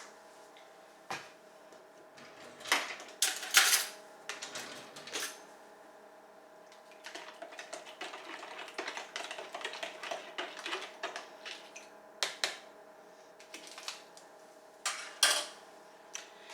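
A spoon clinking and scraping against a dish as sugar is stirred into yeast and hot water, with a run of quick light taps in the middle.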